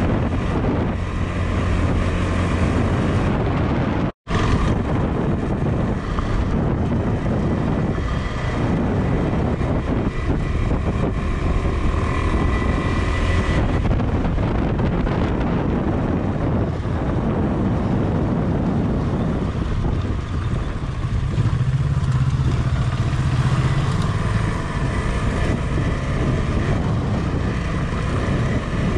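KTM 390 Adventure's single-cylinder engine running under way, its note shifting with the throttle and rising for a few seconds past the middle, with wind buffeting the microphone. The audio cuts out for a moment about four seconds in.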